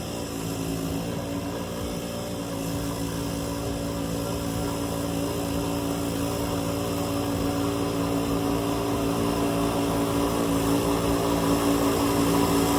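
An engine running steadily at a constant pitch, growing gradually louder.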